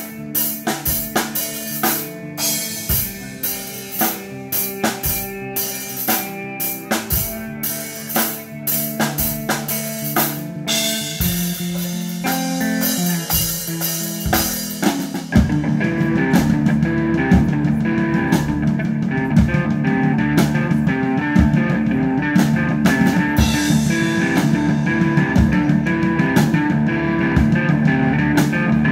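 Live rock band playing, drum kit and guitar. The drums keep a steady beat of sharp hits with sparser guitar and bass notes at first. About halfway through, the full band comes in louder and denser.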